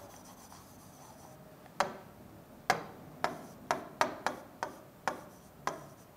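Stylus tip tapping against the glass of an interactive touchscreen whiteboard during handwriting: about ten sharp, irregular taps, starting about two seconds in.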